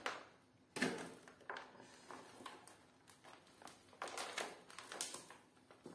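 Hands crumbling and pulling damp potting soil off a Dieffenbachia's root ball over a plastic basin: faint, irregular rustling and crumbling with a few soft knocks, the strongest about a second in and around four seconds in.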